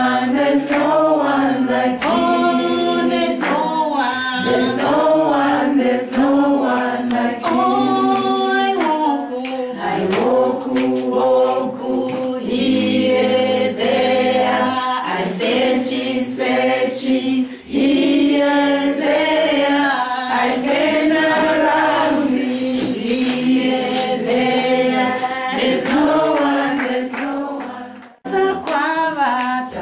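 A choir singing a gospel song a cappella, with a brief break about 17 seconds in and another near the end.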